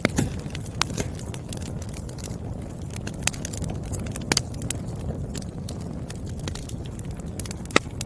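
Wood fire crackling: irregular sharp pops and snaps over a low steady rumble of burning logs, with one louder pop near the end.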